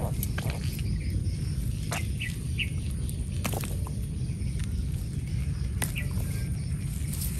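A few short, high bird chirps over a steady low outdoor rumble, with scattered small clicks.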